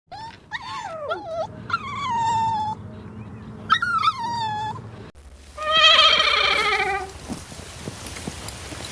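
A dog whimpering in several high whines that fall in pitch. After a cut about five seconds in comes one long, wavering bleat, then faint outdoor noise.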